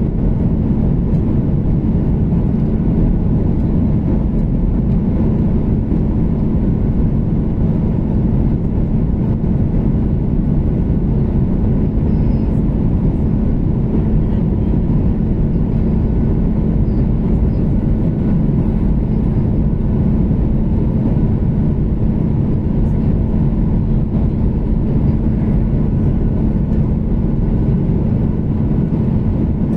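Airliner cabin noise of an Akasa Air Boeing 737 MAX heard from a window seat beside the engine: the steady drone of the CFM LEAP-1B engine and rushing airflow during descent, with a constant low hum under it.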